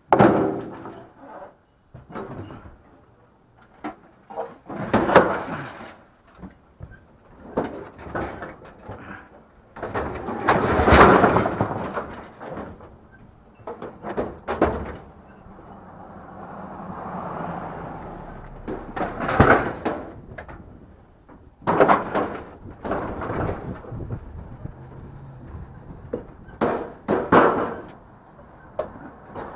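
Irregular bangs, knocks and clatter from a door and scrap items being handled and shoved about. The heaviest clatter comes a little before the middle, and a smoother swelling noise rises and fades just after it.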